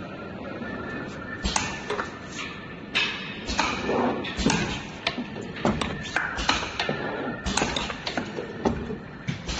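Cosmetic cream filling and capping machine running: its rotary indexing table and stations clack and knock irregularly, with short hissing noises. The knocks start about a second and a half in.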